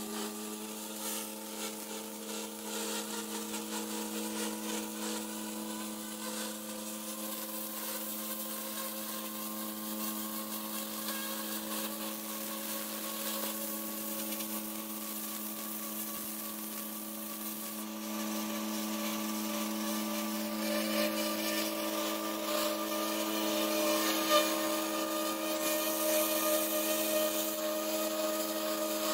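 Pressure washer running with a steady, even hum while its wand sprays water onto paver tiles to strip off spilled paint; the hiss of the spray grows louder about two-thirds of the way through.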